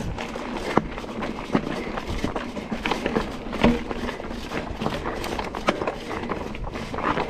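Mountain bike rattling and knocking over a rough dirt trail at speed: irregular sharp clatters from the frame and drivetrain over a steady rush of tyre and wind noise.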